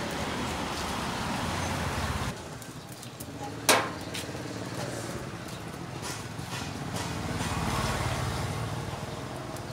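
Outdoor street noise with a low motor rumble that swells a little near the end, and one sharp metallic clank about a third of the way in, the loudest sound here.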